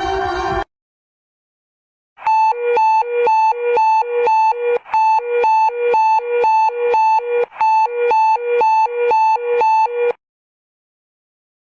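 Emergency alert alarm tone: a harsh electronic hi-lo signal alternating between a high and a low pitch about twice a second. It starts about two seconds in and cuts off suddenly some eight seconds later.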